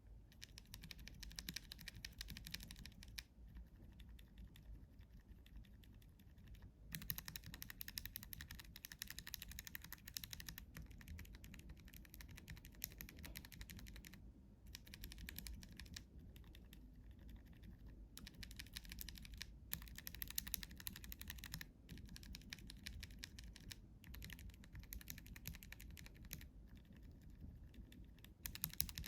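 Typing on a KBD67 Lite R3 mechanical keyboard fitted with linear switches: a fast, continuous stream of key clacks. Stretches of brighter, louder keystrokes alternate every few seconds with quieter, more muted ones.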